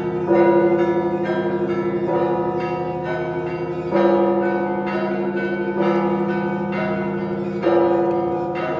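Russian Orthodox church bells ringing: a heavy bell struck about every two seconds over a quicker pattern of smaller bells, with the deep hum of the big bells sustained underneath.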